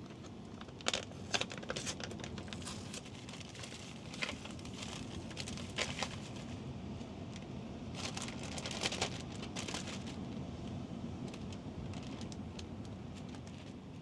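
Crinkling and rustling with scattered light clicks as herring pieces are worked through a simple coating mix.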